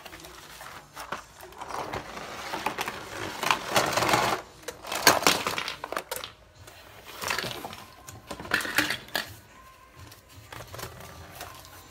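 Small plastic toy tractors and farm pieces clattering and scraping in a cardboard box tray, with a run of sharp clicks that is loudest about five seconds in.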